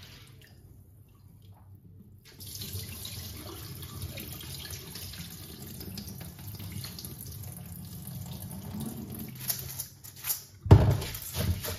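Short-grain sushi rice being rinsed by hand in water in a stainless steel bowl at a sink, a steady watery swishing. Near the end, the cloudy rinse water is poured off into the sink with a loud splashing, the loudest part.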